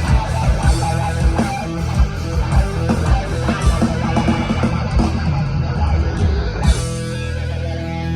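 Rock music with electric guitar and bass over a drum beat. Near the end the drums drop out and held guitar chords ring on.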